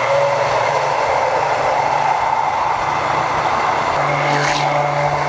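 Immersion hand blender running at medium speed with its blade at the bottom of a tall glass, emulsifying milk, garlic and oil into a thick garlic sauce. A steady motor whir with a hum and a higher whine, its tone shifting slightly about four seconds in.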